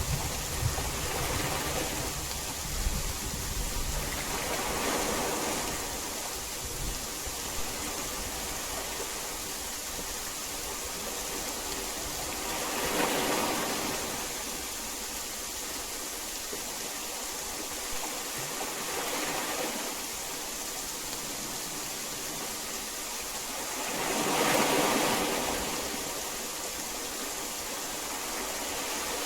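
Heavy rain falling as a steady hiss that swells several times, with a low thunder rumble dying away in the first few seconds.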